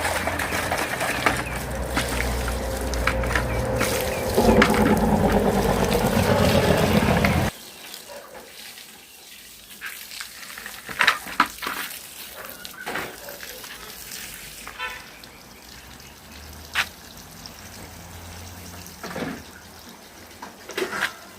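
Water running hard from a tap into a container, filling it, then shut off suddenly about seven seconds in; after that only scattered light knocks and clicks of handling.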